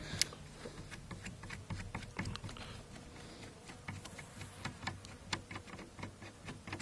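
Faint scattered metallic clicks and scrapes as the gas regulator of a Type 97 machine gun is unscrewed by hand, with a faint steady buzz behind them.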